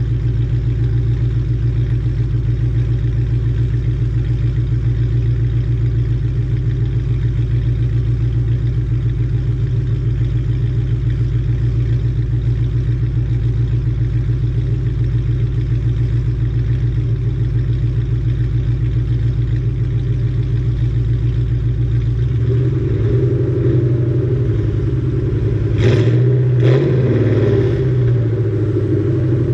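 Ford Mustang with a Borla ATAK cat-back exhaust idling steadily. For the last several seconds the engine is revved, the exhaust note rising and louder with a few sharp blips.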